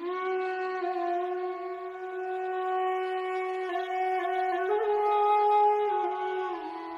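Background music: a wind instrument holding long, steady notes, stepping up in pitch a little about halfway through and back down near the end.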